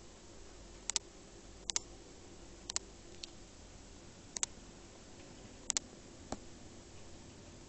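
Sharp clicks, most of them in quick pairs, at irregular intervals of about one a second, over a faint steady hum.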